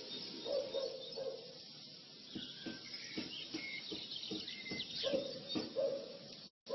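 Birds chirping and calling in the background, short high chirps and brief whistled notes, with a few faint handling clicks. The sound cuts out abruptly just before the end.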